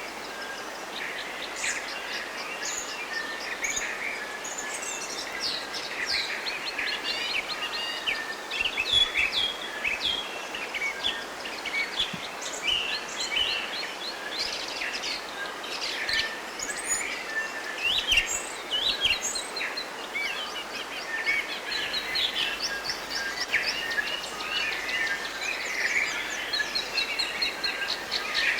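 Forest bird chorus: many birds chirping and whistling over one another, with a fast run of evenly repeated notes near the end, over a steady faint hiss.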